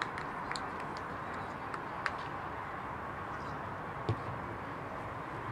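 Rugby pitch ambience: a steady faint background hiss with a few light clicks, and a single dull thump about four seconds in.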